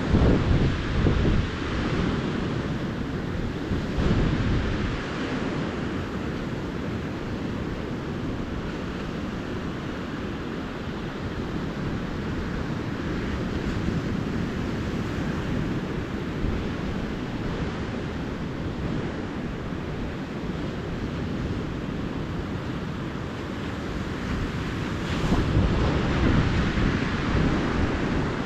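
Calm surf washing onto a beach in a steady rush, with louder surges of breaking waves in the first few seconds and again near the end. Wind buffets the microphone, adding a low rumble.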